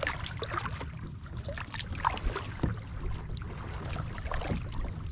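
Water splashing and lapping against a kayak hull as it moves across the lake, with a few short sharp knocks and splashes over a steady low rumble.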